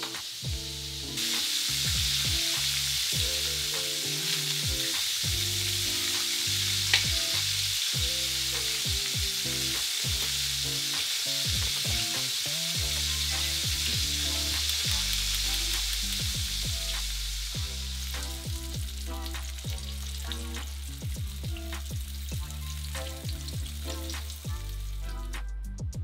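Chicken deep-frying in a pot of oil: a steady sizzle that starts suddenly about a second in and dies away about two-thirds of the way through. Background music with a bass line and a light beat plays throughout and is left alone near the end.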